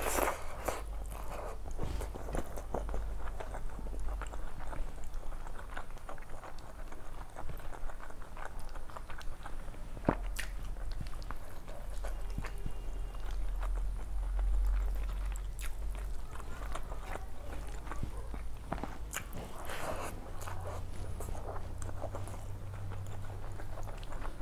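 Close-miked chewing and mouth sounds: many short wet clicks and smacks as she eats rice and fish curry with her fingers, with her hand working the rice on the plate between mouthfuls.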